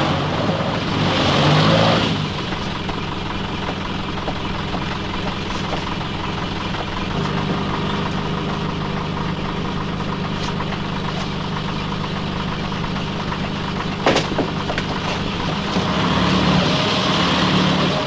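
A motor vehicle's engine idling steadily. Louder noise rises over it near the start and again near the end, and there is a single sharp knock about fourteen seconds in.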